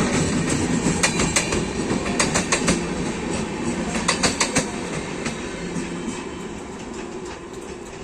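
Express train coaches rolling past at speed, wheels clattering over rail joints in quick groups of clicks. The clatter thins out and the rumble slowly fades over the last few seconds as the train moves away.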